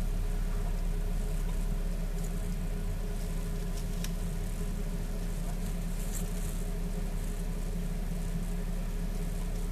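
A steady low machine hum, unchanging throughout, with a couple of faint ticks.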